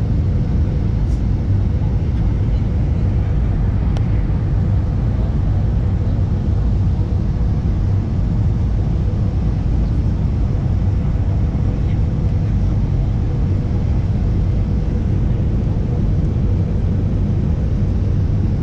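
Steady roar of a jet airliner heard inside the cabin from a window seat beside the wing-mounted engine during the descent to land: mostly a deep, even rumble with a faint steady hum above it.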